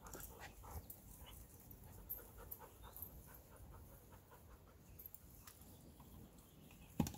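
A dog panting faintly, a steady run of quick breaths, with a sudden knock just before the end.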